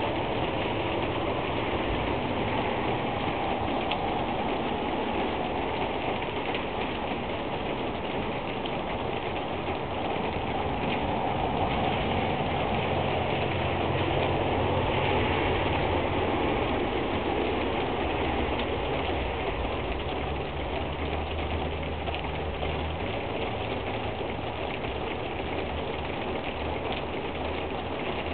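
Steady rain falling, an even hiss with no breaks. From about halfway through, a low steady hum sits beneath it.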